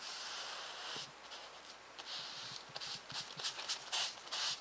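Paint being dabbed and scrubbed through a plastic stencil onto paper: a run of soft, scratchy rustles in short irregular strokes, with a few light taps.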